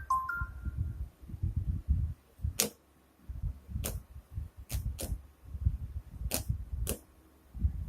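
Air from an electric fan buffeting the microphone in irregular low rumbling gusts, with about six sharp clicks scattered through and a short beep that drops in pitch at the very start.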